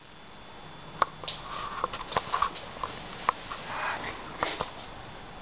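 A cat sniffing in short puffs close to the microphone, mixed with scattered light clicks and taps.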